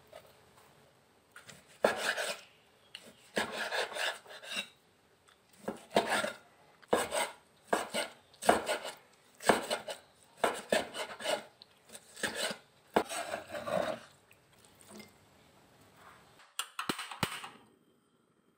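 Steel cleaver slicing raw chicken breast on a bamboo cutting board: a series of short cutting strokes, about one a second, each ending on the board. Two sharp clicks near the end.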